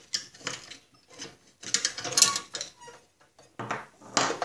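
Irregular metal clinks and scrapes as a drive belt is worked out of the pulleys and brackets of a walk-behind lawn mower's drive by hand, with a louder clatter of tools on the workbench near the end.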